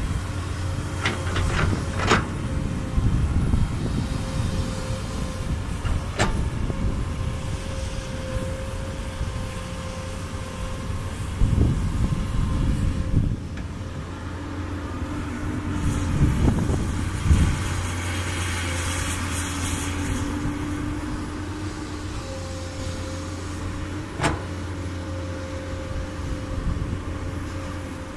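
Komatsu PC200 excavator's diesel engine running steadily with hydraulic whine, surging under load twice in the middle. A few sharp metallic knocks are heard, typical of the bucket and linkage working.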